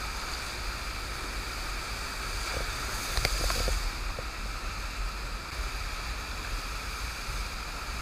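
Steady rush of the FlowRider's sheet of pumped water pouring over the ride surface, with a surfboard carving through it; it swells briefly with a splash of spray a little after three seconds.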